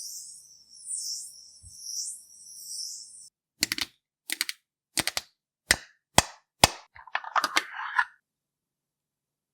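Makeup ASMR sound effects: a soft, hissy swishing that swells about once a second, like brush strokes. It stops abruptly and is followed by a run of sharp, separate clicks and a quick rattling cluster of clicks.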